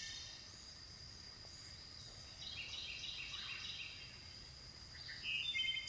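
Outdoor nature ambience: a steady high insect trill, with a run of quick bird chirps about two and a half seconds in and again near the end.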